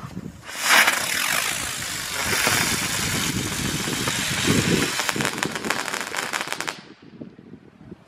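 Xplode Crackling Bird firework (a winged fire-bird) burning: a loud rushing hiss with a wavering pitch, then a dense fast crackle from its crackling charge that cuts off suddenly about seven seconds in.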